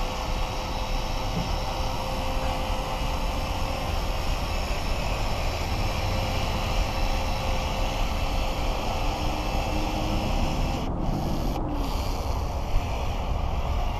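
Steady wind noise on the microphone, with a faint steady hum underneath that stops about ten seconds in.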